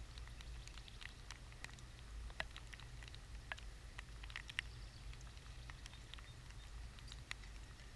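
Scattered raindrops ticking irregularly on the camera housing during a thunderstorm, a few ticks a second, over a steady low rumble.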